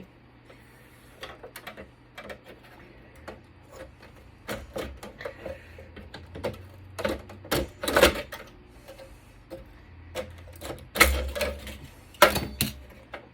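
Irregular clicks, knocks and clatter of a Cisco Catalyst network switch's chassis and parts being pried at and handled during teardown. The loudest knocks come about eight seconds in and twice near the end.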